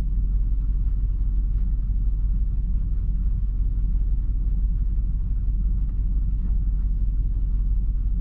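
Nissan Titan's 5.6-litre V8 idling with a steady low rumble; the engine is misfiring on several cylinders.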